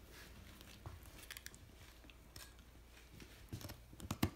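A Shichon (Bichon–Shih Tzu mix) dog chewing on a bone-shaped chew treat: scattered crunching clicks and bites, faint at first and louder in a quick cluster near the end.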